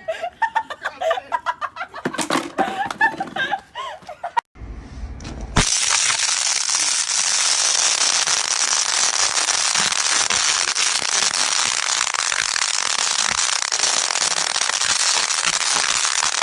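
A few seconds of a man talking, then after a short gap a loud, dense crackling that starts abruptly and holds steady for about ten seconds.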